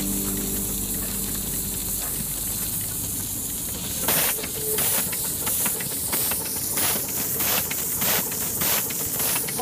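Coal-fired live-steam scale locomotive hissing steam. About four seconds in it starts an even chuff of about three exhaust beats a second, with steam blowing out at the cylinders.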